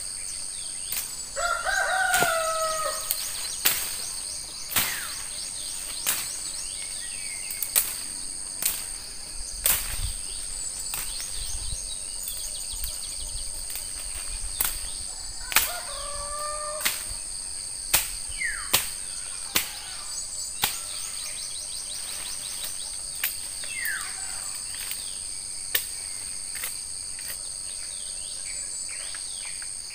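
A rooster crowing twice, once about two seconds in and again near the middle, over a steady high drone of insects. Sharp cracks and snaps of woody stems being broken or cut sound every second or so.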